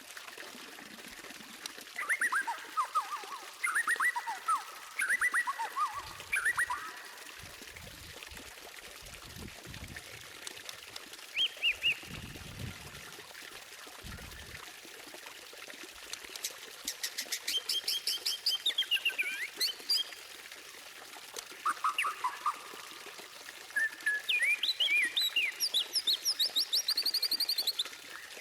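White-rumped shama (murai batu) singing: bursts of quick sweeping whistled phrases in the first seven seconds, then, after a lull with some low thuds, long runs of very rapid, high repeated notes and trills in the second half.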